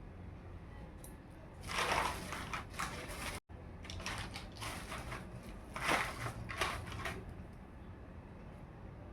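Hands handling a miniature plastic toy makeup kit and its packaging: two spells of crackly handling noise, one about two seconds in and a longer one from about four to seven seconds in, with a brief cut between them.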